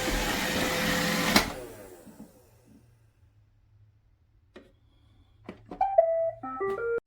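iRobot Roomba robot vacuum and mop combo running with a steady motor whine, then shutting off abruptly about a second and a half in. After a pause come a few clicks and a short run of stepped electronic beeps near the end.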